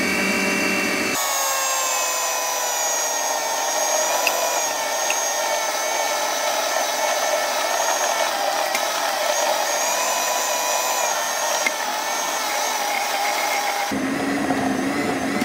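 Bajaj food processor motor running steadily with a whine, kneading wheat-flour (atta) dough in its bowl. About a second in the pitch of the motor shifts. Near the end it drops to a lower tone as the knob is turned.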